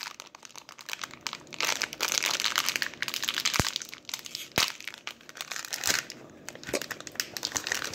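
Plastic fruit snack pouches crinkling as they are torn open and handled, with a couple of sharp clicks midway.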